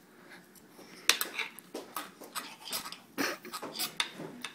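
Knife and fork scraping and clinking against a plate while a pancake is cut up. After about a second of quiet comes a string of short, sharp clicks and scrapes at uneven spacing.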